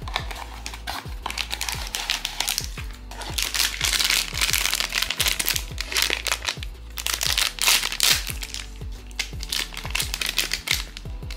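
Crinkling and rustling of a blind-box's foil-lined plastic pouch as it is handled and torn open, in irregular crackly bursts. Background music with a steady beat plays underneath.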